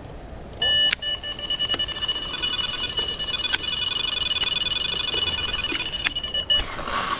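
Electronic bite alarm on a carp rod sounding a run: a rapid, unbroken stream of high beeps as a fish takes line. It starts under a second in and cuts off suddenly near the end.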